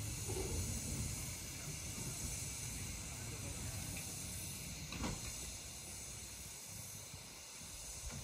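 Steady hiss of steam escaping from a narrow-gauge steam locomotive standing in steam, over a low rumble, with one sharp click about five seconds in.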